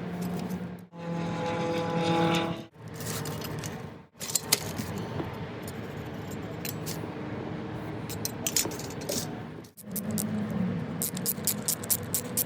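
Clinks, clicks and scrapes of small metal parts and tools being handled while an old Maradyne fan is taken apart, in several short clips cut together, with a steady low hum under parts of it.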